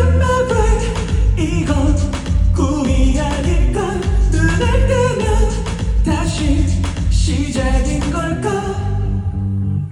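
Pop song playing: a singing voice over instrumental backing with a steady drum beat and heavy bass, thinning out near the end.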